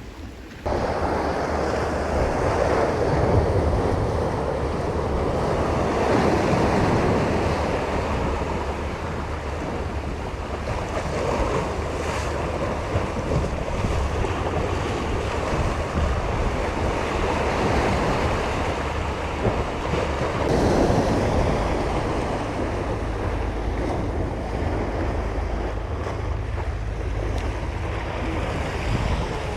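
Sea waves washing in against the shore, swelling and easing every few seconds, with wind buffeting the microphone.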